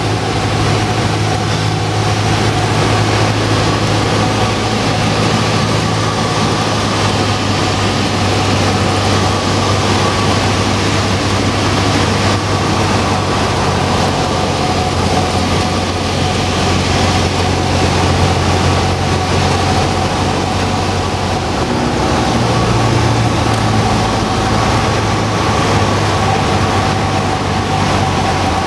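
Cessna 172 Skyhawk's piston engine and propeller droning steadily in cruise flight, heard inside the cabin with the rush of airflow. The engine note shifts slightly about two-thirds of the way through.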